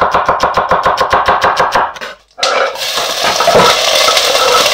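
Intro sound effect for a channel title card: a rapid run of sharp, evenly spaced hits, about eight a second, lasting about two seconds. After a short break, a loud, steady hissing noise starts about two and a half seconds in.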